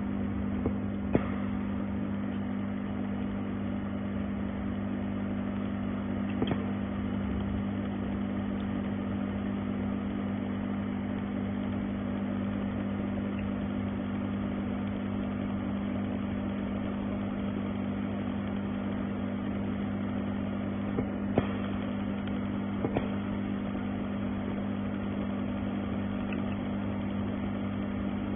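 Mold-repair laser welding machine running with a steady electrical hum, broken by a few sharp clicks.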